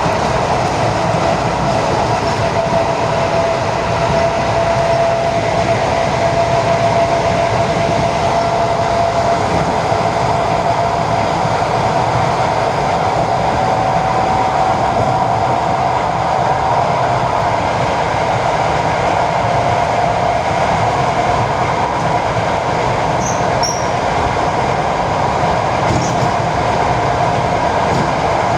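ED4M electric multiple unit running along the line: a steady rumble of wheels and running gear with a high whine held throughout.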